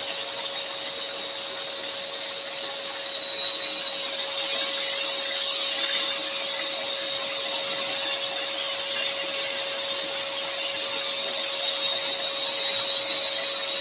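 Axminster Trade AT406SS scroll saw running, its spiral blade cutting through a thin wooden panel with a steady high hiss over a steady hum. The small craft extractor draws air at the table.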